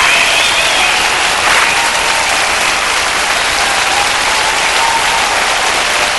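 Concert audience applauding at the end of a song, a dense, steady clapping.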